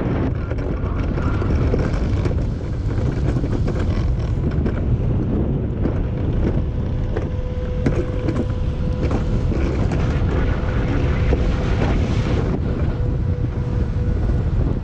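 Wind rushing over the microphone with the steady rumble of an alpine coaster sled's wheels running along its steel rail, broken by occasional clicks and knocks. A faint steady whine comes in about halfway and fades again near the end.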